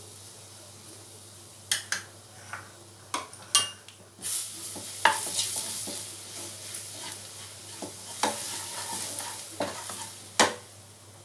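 Ground spices (turmeric, coriander and red chilli powder) frying in hot oil in a nonstick kadhai, stirred and scraped with a spatula: a sizzle that swells about four seconds in, with several sharp clicks of the spatula against the pan.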